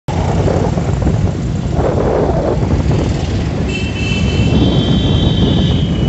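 Street traffic heard from a moving vehicle: a dense low rumble of engines and wind buffeting on the microphone. A little past halfway, high steady tones at several pitches come in together and hold.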